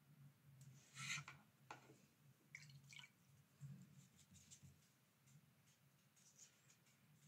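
Near silence: faint rustles and light ticks of a watercolour brush being dabbed and blotted on a crumpled paper towel, over a low steady hum.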